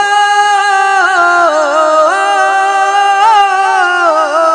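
A singer holds one long note on 'ho' in a sung Punjabi Sufi kalam, with small ornamental turns in pitch about a second in and again near the end.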